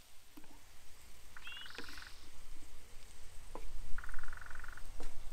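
Frogs calling: two rapid, pulsed croaking trills, each under a second long, about a second and a half in and again about four seconds in. A few sharp knocks from a wooden spatula on the metal wok are heard between them.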